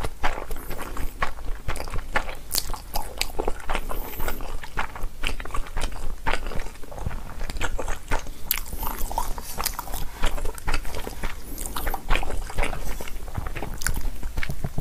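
A person chewing a mouthful of food close to a clip-on microphone, heard as a dense, irregular run of short mouth clicks.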